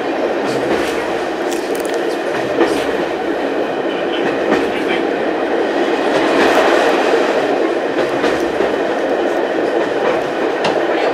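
Steady running noise of a diesel-hauled heritage train heard inside a passenger carriage, with scattered clicks of the wheels over the track.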